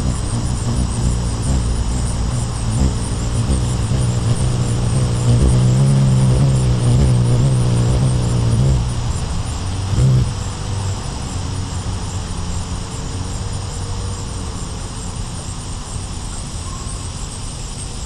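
Male ruby-throated hummingbird's wings humming as it flies in and hovers at a nectar feeder, a low hum that wavers up and down in pitch and is loudest in the middle, with a brief louder swell about ten seconds in.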